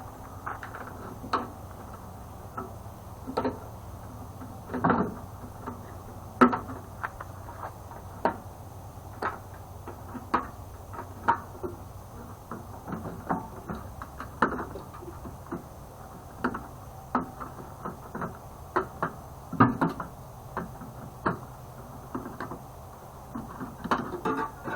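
Irregular metallic clicks and knocks of hand tools and sheet-metal parts as a microwave oven is taken apart, over a steady low hum.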